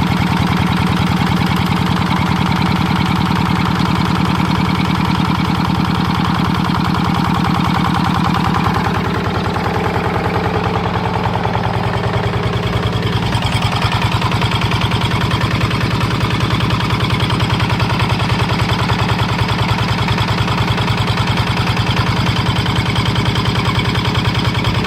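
Small engine running steadily with a fast, even chugging, its note shifting slightly about nine seconds in.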